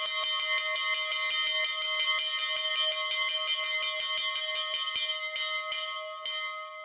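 Small hanging metal bell rung rapidly, its clapper striking over and over in a fast clanging peal with a steady ringing tone: the morning rising bell, the wake-up signal. The ringing fades away near the end.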